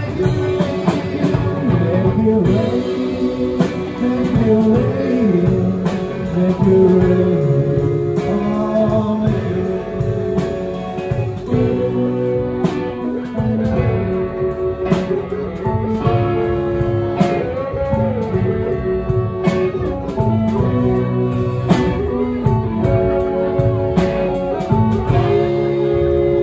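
Live band playing a blues-rock number: electric guitar with sliding, bending notes over keyboard, bass guitar and drums.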